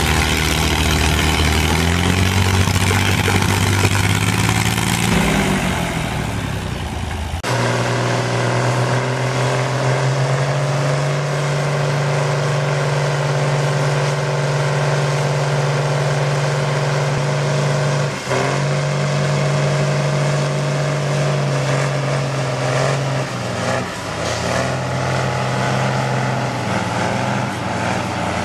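Tractor diesel engines labouring under load in a tug of war. First a small crawler tractor and a wheeled tractor, their engine pitch rising and falling. Then, after a sudden change, a Fendt 936 Vario and a three-axle MB-Trac run hard at a steady pitch, dipping briefly twice.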